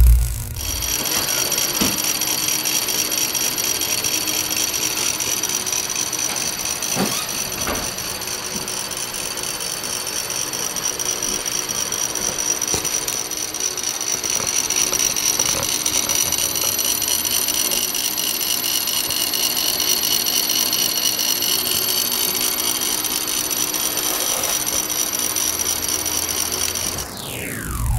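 Yaskawa SGM-01V3NT21 100 W AC servo motor running on a test bench, driven by its servo drive. It gives a steady high whine of several tones over a rough mechanical noise, with a few short knocks about two and seven seconds in.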